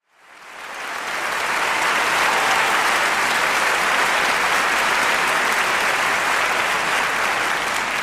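Concert-hall audience applauding steadily, fading in over the first second, as the pianist arrives at the grand piano.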